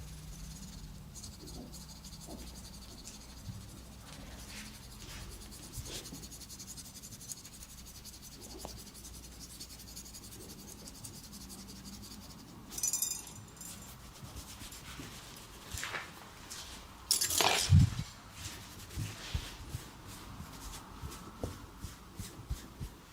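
Hands rubbing over skin and hair in a head and back massage, with scattered soft taps. There is a short louder burst of rubbing about 13 seconds in, and the loudest one about 17 seconds in.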